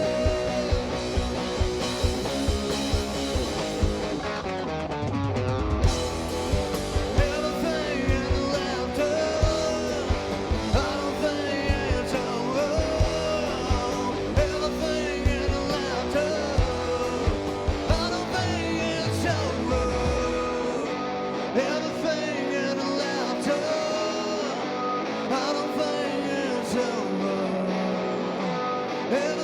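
Live rock band playing an instrumental passage: a bending, wavering electric-guitar lead over steady drums. The bass drops out about two-thirds of the way through while the drums and guitar carry on.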